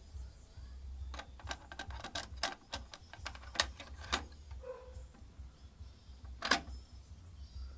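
Plastic clicks and rattles of a Sony ZX 90 audio cassette being handled and fitted into the cassette well of a JVC TD-W254 tape deck, a quick run of them in the first half, then one sharp snap about six and a half seconds in as the cassette door is pushed shut. A faint steady low hum runs underneath.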